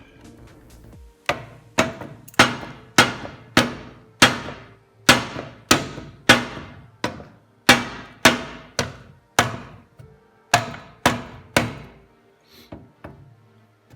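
A hammer striking repeatedly, about eighteen sharp blows at roughly two a second, each ringing briefly, with a few short pauses in the rhythm, before the blows stop near the end.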